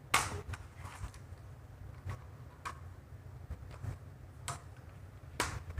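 Scattered light clicks and knocks, about seven over a few seconds, from model train track sections and cars being handled and set down.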